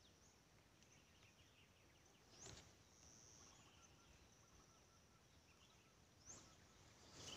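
Near silence: faint outdoor ambience with a thin, steady, high insect drone and a few faint distant bird chirps. Two faint brief noises come about two and a half and six seconds in.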